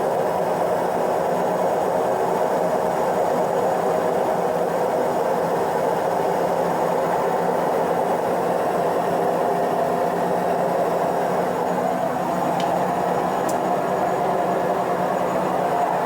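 Hotpoint Ariston washing machine spinning: a steady, loud rumbling whir from the drum, with no change in speed.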